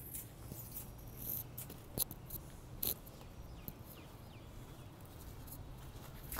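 Kittens eating: scattered small clicks and crunches of chewing and of food against a dish, with two sharper clicks about two and three seconds in.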